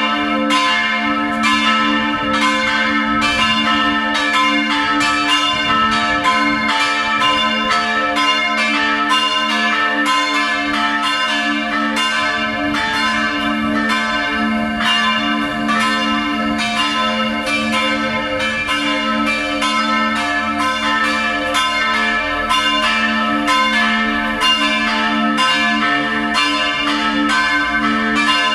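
Full peal of three swinging church bells tuned a', c'' and d''. Their strokes overlap in an irregular, continuous clangour while the low hum notes ring on steadily.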